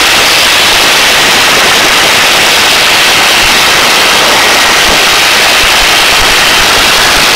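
Hovering helicopter's steady, loud noise, heard as a dense, unbroken hiss.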